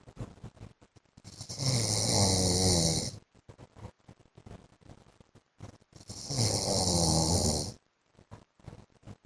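A man snoring in his sleep: two snores, each about two seconds long and about five seconds apart, with faint clicks between them.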